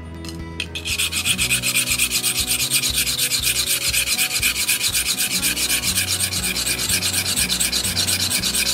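Steel blade of hand-forged Japanese tailor's shears being sharpened on a wet whetstone: quick, even back-and-forth strokes of steel rubbing on stone, several a second, starting about half a second in.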